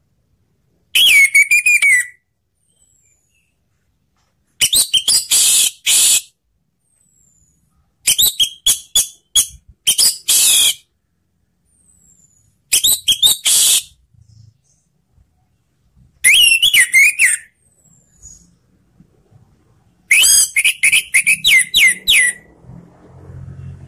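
Orange-headed thrush (anis merah) singing: six loud phrases a few seconds apart, each a quick run of high chattering notes mixed with clear whistled slurs, with silence between them.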